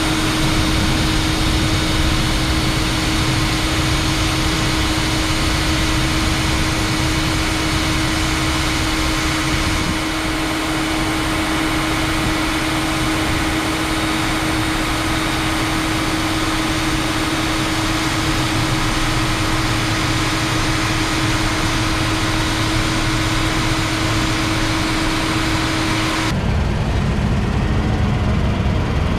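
Combine harvester running steadily: a constant machine drone with a steady hum. About 26 seconds in it cuts abruptly to a different, lower engine sound.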